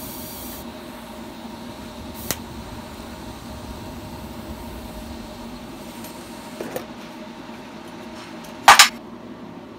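TIG welding on stainless steel tubing: a steady hum and hiss from the arc and welder, with a short burst of high hiss at the start as the arc strikes. A loud metallic clack near the end is the loudest sound.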